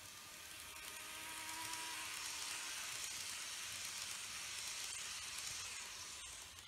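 TOMIX N-gauge E3 series Komachi model train running past on its track: a hissing rush of wheels on rails with a faint motor whine. It swells as the train passes close and falls away about six seconds in.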